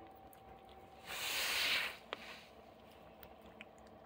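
A dog breathing out once, hard through the nose: a short hiss about a second in lasting under a second, followed by a small click.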